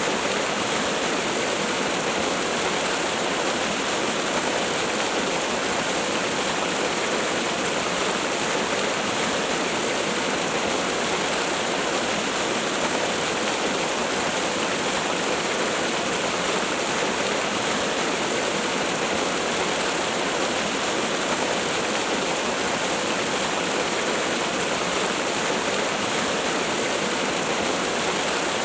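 Waterfall: a steady, unbroken rush of falling water, even in level, with little deep rumble.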